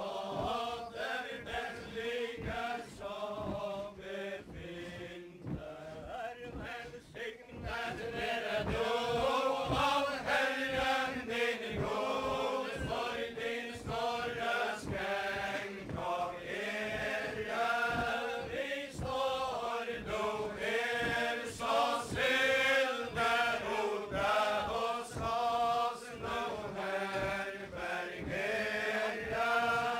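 A group of mostly male voices singing a Faroese chain-dance ballad in unison, verse after verse. A steady thudding beat of dance steps runs beneath the singing. It is a little quieter from about four to eight seconds in, then louder.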